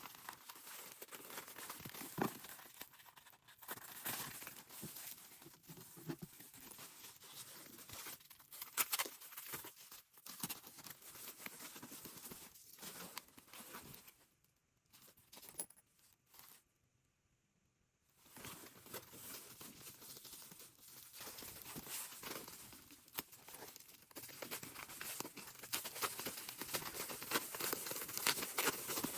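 Packaging being unwrapped by hand: wrapping crinkling and tearing, with frequent sharp crackles. It stops for a few seconds about halfway, then starts again and grows louder near the end.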